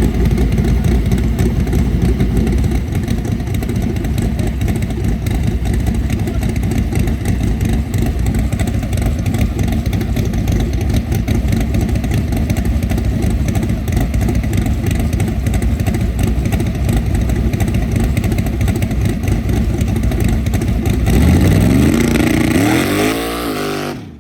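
Naturally aspirated Ford Mustang's engine running loud and hard with a dense, steady rumble. About three seconds before the end it revs up, rising in pitch, then cuts off suddenly.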